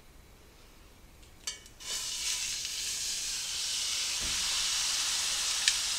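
Beef chuck roast laid into hot oil in a skillet, sizzling as it sears: quiet at first, then a sudden steady sizzle starts about two seconds in and holds. A short click comes just before it, and another near the end.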